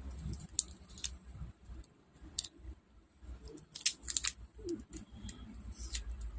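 Hand cutters snipping at the plastic and label of a Bose SoundLink Revolve+ lithium-ion battery pack, a handful of sharp snips with the loudest bunched together about four seconds in; the pack is being cut apart so its dead cells can be removed.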